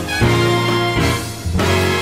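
Swing-style backing music with brass instruments playing held notes over a steady bass line.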